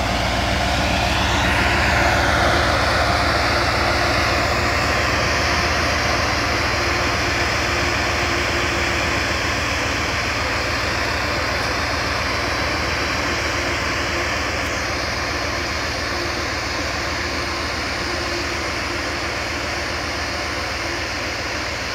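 Engine of a home-built 4x4 truck on oversized tyres running steadily as it drives off through deep snow, a droning sound that peaks about two seconds in and slowly fades as the truck moves away.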